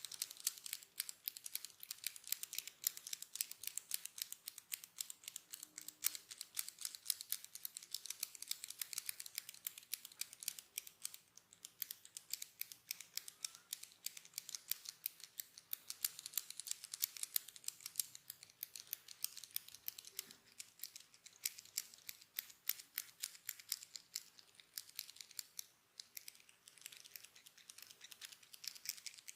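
A fast, steady run of crisp, high-pitched clicks, several a second, close to the microphone.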